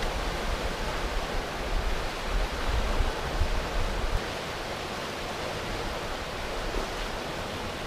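Rushing river water running over rocky riffles, a steady hiss. A low rumble sits under it for the first four seconds or so, then stops.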